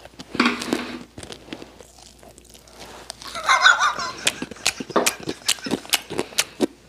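Handling noise from a small clip-on microphone held and rubbed against a padded down jacket: scattered rustles and knocks, then a quick run of sharp clicks over the last two seconds or so.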